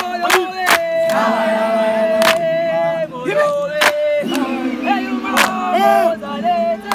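A group of young male voices singing a gwijo, a South African communal chant, together, with long held notes, punctuated by sharp handclaps every second or so.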